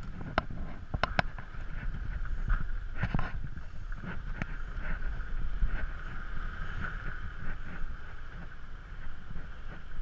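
Motor scooter riding slowly over a rough dirt road. The engine runs with a steady whine under a low rumble, and there are clicks and knocks from the bike and camera mount over bumps, mostly in the first second and a half and again around three seconds in.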